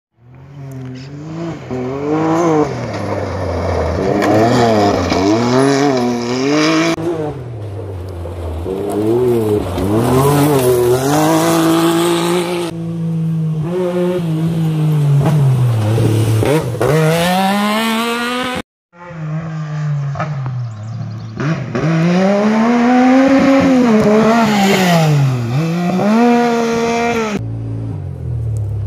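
Rally UTVs on a gravel stage, their engines revving up and down over and over as the drivers come on and off the throttle while approaching and passing. The sound cuts out abruptly for a moment about two-thirds through, then another stretch of rising and falling revs follows.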